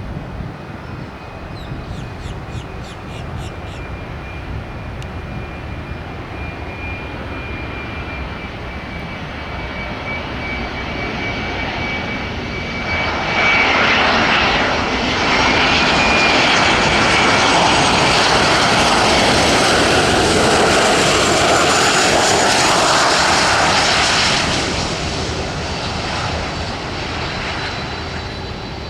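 Jet airliner's engines passing close by: a high whine over a rising rush that grows loud for about ten seconds from near the middle, then fades.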